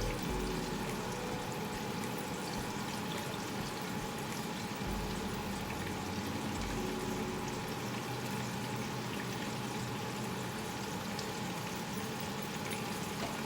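Pork chops sizzling steadily as they fry in a pan.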